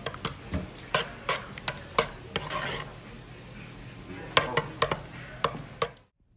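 Metal spoon stirring a thick cheese sauce in a pot, with frequent sharp clicks and scrapes of the spoon against the pot. The sound cuts off abruptly near the end.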